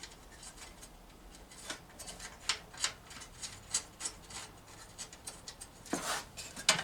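Irregular light metallic clicks and scrapes of a bracket and its bolts being handled and fitted onto a car radiator, with a longer scrape near the end.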